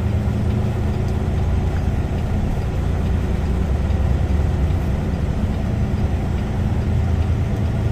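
Semi truck's diesel engine idling steadily, a low even hum heard from inside the cab.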